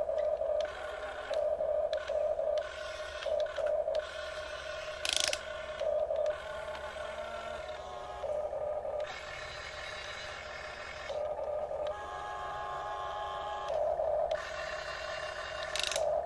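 Huina 1350 RC excavator's electric gear motors whining in short stop-start bursts as the boom, arm and bucket move, then in longer runs in the second half as the machine slews round. Two sharp clicks.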